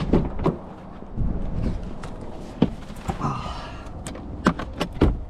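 A scattering of sharp clicks and knocks from handling things on the car, ending in a heavy thump about five seconds in, over the low rumble of wind buffeting the microphone.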